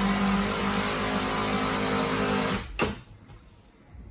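Electric drive motor of a power helm seat running as the seat travels along its track, a steady hum that stops about two and a half seconds in, followed by a click.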